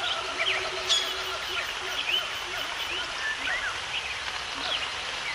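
Several wild birds calling with many short chirps and quick pitch glides over a steady background hiss, with a sharp click about a second in.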